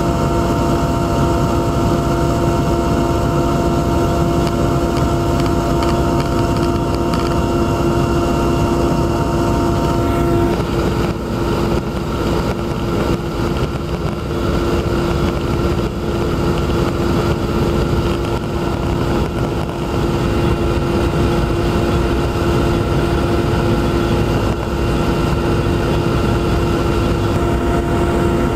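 Aircraft engine noise heard inside the cabin: a steady, loud drone with several held tones. A couple of the higher tones drop out about ten seconds in and come back near the end.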